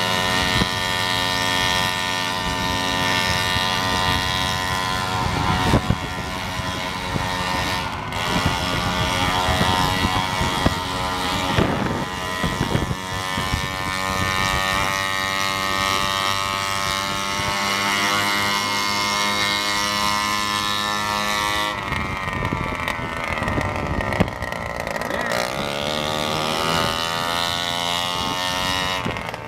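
Two-stroke moped engines running hard at high revs, one of them a Yamaha Neos running without its exhaust pipe. The pitch shifts and sweeps as the throttle changes, most clearly a little past the two-thirds mark.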